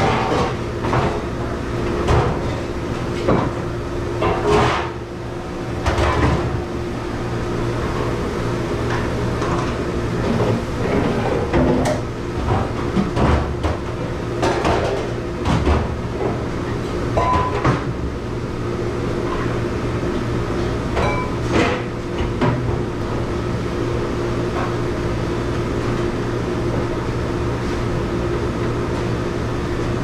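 Dishes, metal pans and plastic dish racks clattering and knocking against a stainless-steel sink as they are handled in a restaurant dish pit, over a steady machine hum. The clatter is frequent for about the first twenty seconds, then dies away, leaving the hum alone.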